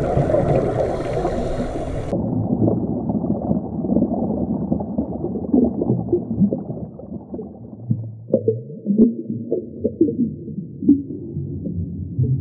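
Muffled underwater water noise, low gurgling and rumbling. About two seconds in it turns duller, and from about eight seconds scattered short clicks and pops come through.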